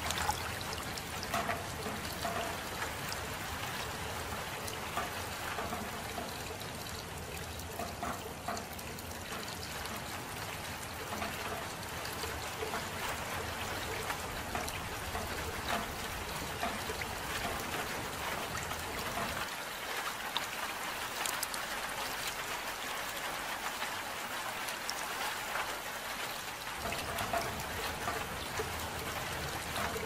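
Soft, steady rain falling, with scattered close drips and patters. A low rumble underneath fades out for several seconds past the middle and then returns.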